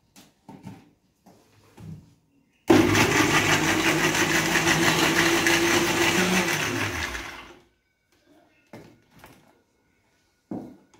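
Electric jar blender running, blending a banana, nut and milk milkshake: it starts suddenly about three seconds in, runs steadily and loudly for about five seconds, then drops in pitch and winds down as it is switched off. A few light clicks and knocks come before and after it.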